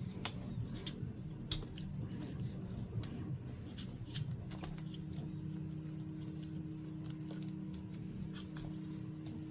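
Scattered small clicks and taps of the plastic and metal parts of a mini RC truck being handled and fitted together. A low steady hum comes in about halfway.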